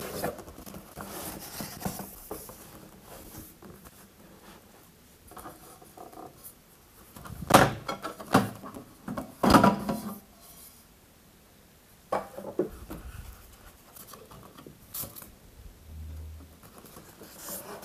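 Cardboard box and plastic ceiling-light fixture being handled while unpacked: scattered knocks, scrapes and rustles, with the loudest run of knocks about halfway through.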